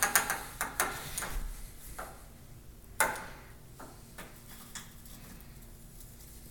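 A quick run of light clicks and taps for about the first second and a half, a single sharper tap about three seconds in and a few faint ones after it, then quiet room tone.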